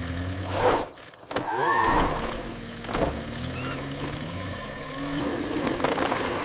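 Cartoon car engine sound effect humming steadily, with a few short whooshing swishes over it.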